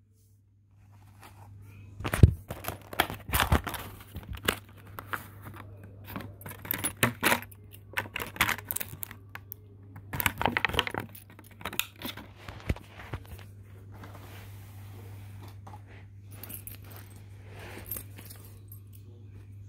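Tearing open a cardboard-and-plastic blister pack for a diecast toy car: a dense run of sharp crackles, tears and clicks, easing into quieter handling and a few clicks near the end, over a steady low hum.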